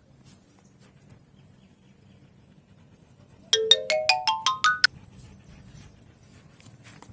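A quick rising run of about ten short, bright electronic notes, each a step higher than the last, lasting about a second and a half around the middle; the rest is faint background.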